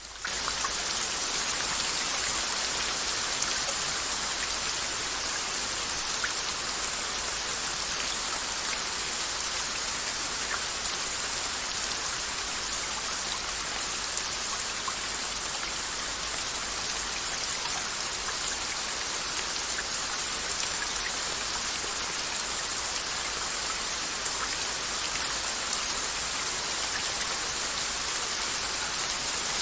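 Steady rain: a dense, even hiss of falling water with scattered sharp drop ticks. It comes in suddenly at the very start and then holds level.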